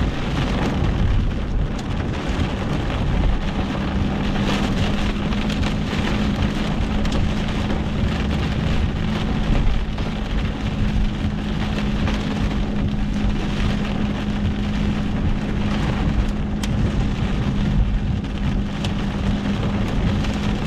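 Heavy rain beating on the roof and windshield of a moving car, heard from inside the cabin, mixed with tyre and road noise. A steady low hum comes in about three seconds in.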